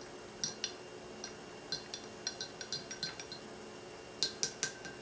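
A teaspoon stirring tea in a cup, clinking irregularly against the sides, with a quick run of louder taps near the end.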